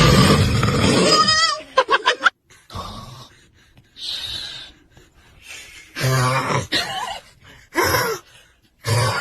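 Loud snoring and a baby's cries in short, irregular bursts with pauses between them. The loudest stretch is in the first second and a half.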